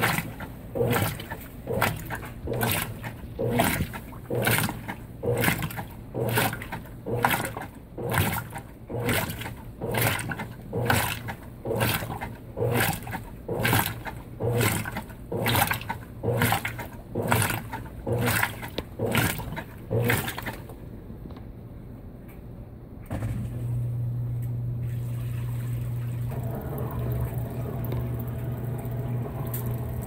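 Consul 16 kg top-load washer's impeller agitating a load at an extra-low water level, water swishing back and forth in even strokes about one and a half a second. The strokes stop about two-thirds of the way through, and after a short lull a steady low hum starts as the machine drains the tub.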